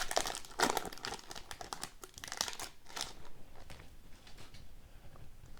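Wrapper of a pack of hockey cards crinkling as it is torn open and pulled off. The crinkling is densest for about the first three seconds, then dies down to light handling.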